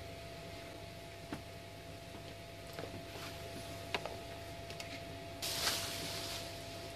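Hands working on carpet pieces glued inside a cardboard barrel: a few light taps and clicks, then a short scuffing rustle about five and a half seconds in, over a faint steady hum.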